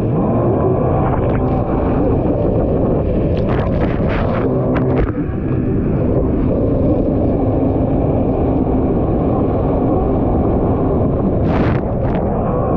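Kawasaki SX-R 1500 stand-up jet ski's four-cylinder four-stroke engine running hard at racing speed, its pitch shifting a little, with wind on the microphone. Short splashes of water come through around four seconds in and again near the end.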